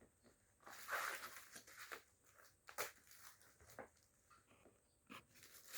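Faint rustling and handling of packaging, with a few light clicks and knocks; the loudest rustle comes about a second in.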